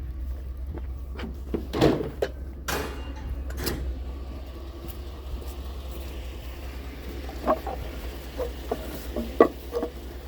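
Steady low drone of a vehicle engine running, with scattered clunks and knocks: a few louder ones about two seconds in, and a quick run of lighter knocks near the end.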